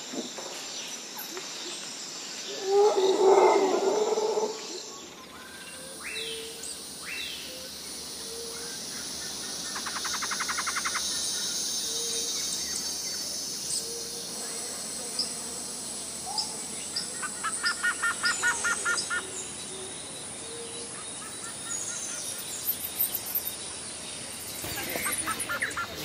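Several different birds calling and chirping in turn, over a steady background hiss. A louder burst of calls comes about three seconds in, and rapid trills come around ten seconds in and again near eighteen seconds, with short high chirps in between.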